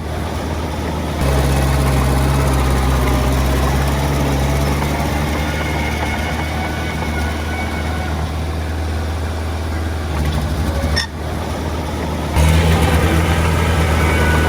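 Heavy diesel engine of earth-moving machinery running steadily, with abrupt jumps in level about a second in, near 11 seconds and again about 12.5 seconds in.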